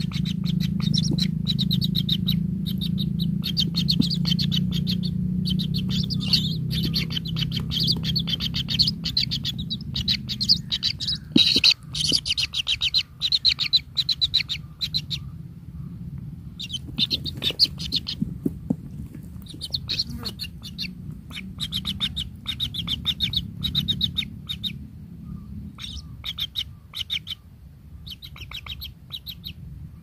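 Kingfisher nestlings calling: bouts of rapid, high chirps repeated many times a second, broken by short pauses and growing sparser in the second half, over a low steady hum.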